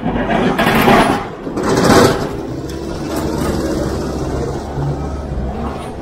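Wheel loader with a front snow-plough blade clearing the road and passing close by, its diesel engine running steadily, with two louder rushes of noise about one and two seconds in.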